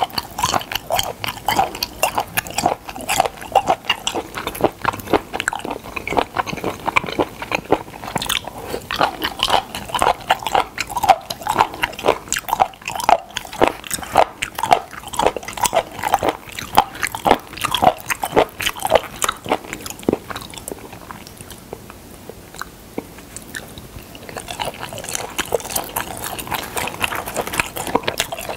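Close-miked mouth sounds of chewing raw spoon worm (gaebul): a dense run of wet, crunchy chewing clicks and smacks, easing off for a few seconds about three quarters of the way through and then starting again.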